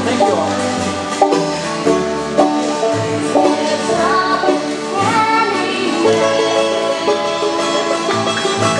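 Bluegrass band playing an instrumental passage, with banjo picking over guitar, bass and fiddle.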